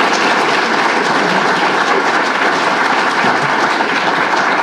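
An audience applauding steadily, welcoming a speaker to the podium after his introduction.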